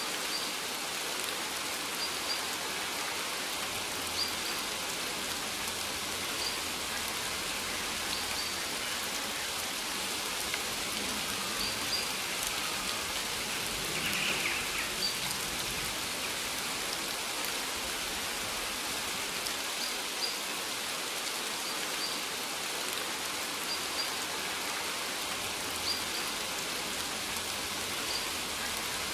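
Steady rain falling on maize plants, an even patter with scattered individual drops ticking through it.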